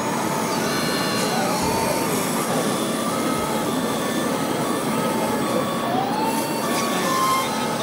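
Busy exhibition-hall background of crowd chatter and model machinery, with a small electric motor's whine rising and falling twice.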